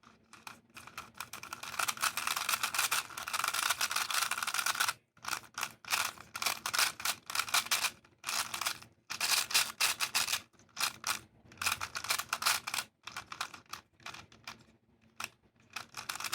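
A GAN 356i 3x3 speedcube being turned fast: rapid plastic clicking and clacking of the layers, in flurries of turns broken by short pauses.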